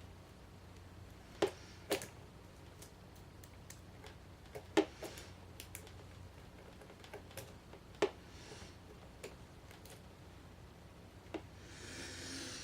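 Scattered sharp metal clicks and taps from lock-picking tools working in a pin-tumbler padlock, a dozen or so at irregular intervals, with a soft rustle near the end.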